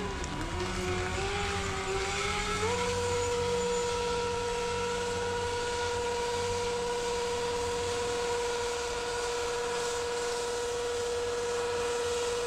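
Stunt motorcycle engine held at high revs while the rear tyre spins in a smoking burnout. Its pitch wavers, then climbs about three seconds in and holds steady.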